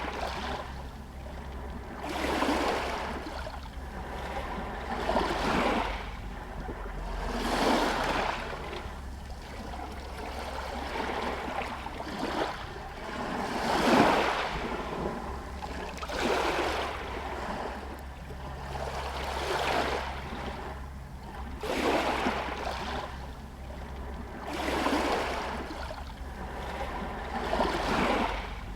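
Small Adriatic Sea waves lapping against a pier and shore stones, washing in and fading every two to three seconds, the strongest wash about halfway through. A steady low rumble lies underneath.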